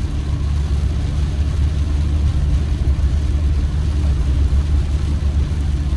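Steady low engine and road rumble of a campervan on the move, heard from inside the cab.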